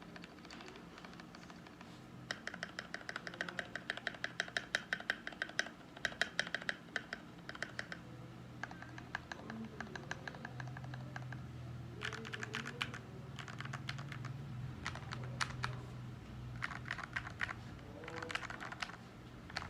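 FL680 mechanical keyboard with lubed Gateron Milky Yellow Pro linear switches and Akko ASA PBT doubleshot keycaps being typed on quickly, in runs of rapid keystrokes broken by short pauses. The longest, loudest run comes early, followed by shorter bursts of about a second each.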